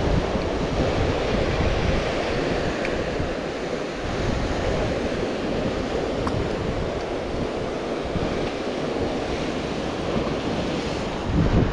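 Sea surf washing and breaking over shoreline rocks, a steady rush of water, with wind buffeting the microphone.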